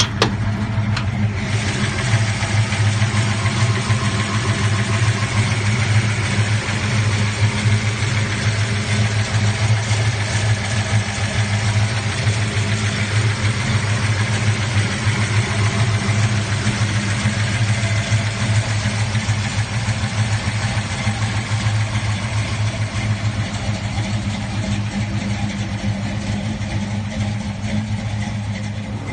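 1967 Chevelle SS's 454 big-block V8 running at a steady idle, its pitch unchanging throughout.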